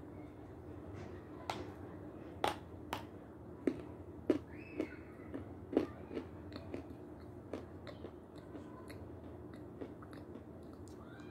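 Crisp, irregular crunches and chewing close to the microphone as pieces of Severski edible chalk dipped in yogurt are bitten and chewed.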